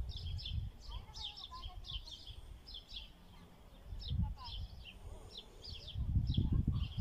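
Small birds chirping in quick, short calls, several a second. Beneath them a low rumble on the microphone swells briefly about four seconds in and again near the end.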